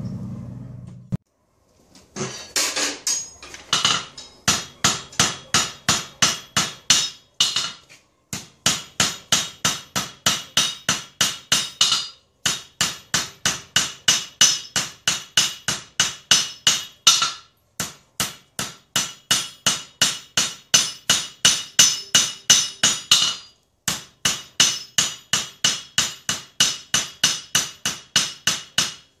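Hand hammer striking a red-hot steel billet of forge-welded chainsaw chain on an anvil, drawing out the blade's bevels: runs of ringing blows about two to three a second, broken by a few short pauses. The blows begin about two seconds in.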